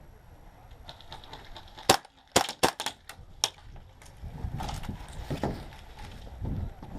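Airsoft guns firing: a single sharp shot about two seconds in, a quick string of four shots, then one more. From about the middle on, low rumbling movement noise on the microphone.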